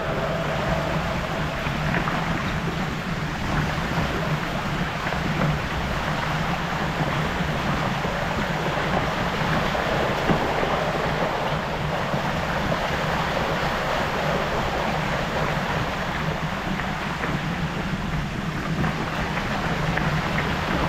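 Mountain bike tyres rolling through shallow standing water on a flooded tunnel floor: a steady rushing splash over a low rumble.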